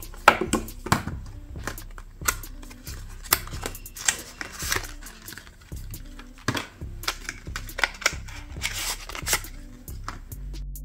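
Cardboard packaging of a smartwatch box handled: the lid and a paper insert slid and lifted out, giving a run of irregular sharp clicks, taps and scrapes. Quiet background music plays underneath.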